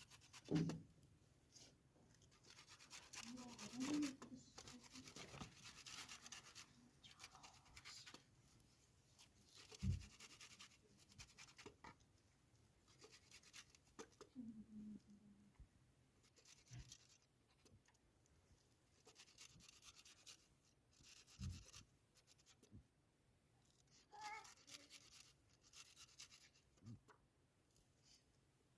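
Quiet handling sounds: spells of scraping and rubbing, a few soft knocks, and brief faint voice sounds.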